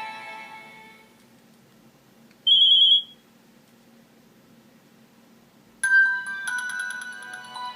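Nokia 6230i ringtones and alert tones playing in turn. The end of a string-like melody fades out in the first second. About two and a half seconds in comes a single short high beep, the loudest sound here. Near the end a new ringtone melody of quick electronic notes starts abruptly.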